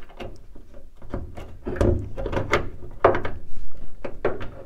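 Irregular metal clicks and knocks of hand work as a retaining pin is pushed through the upper mount of a new bonnet gas strut. The louder knocks come about two and three seconds in.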